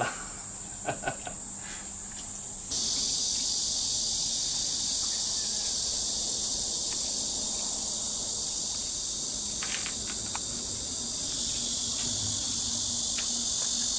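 Steady, high-pitched chorus of summer insects chirring, which gets louder about three seconds in.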